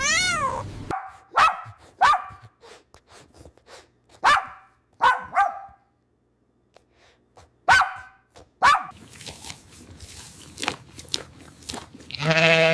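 A dog barking: short, high-pitched barks in ones and pairs with gaps between. A falling cat meow ends it at the start, and a wavering goat-like bleat comes in near the end.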